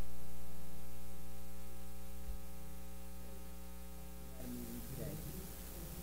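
Electrical mains hum, a steady buzz with a stack of evenly spaced overtones, slowly fading. Faint, distant voices come in about four and a half seconds in.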